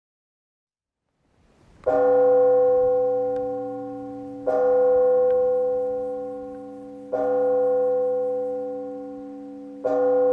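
A single large Russian church bell tolled in slow, even strokes, the measured toll rung for matins. It starts about two seconds in and strikes four times, about two and a half seconds apart, each stroke ringing on at the same pitch into the next.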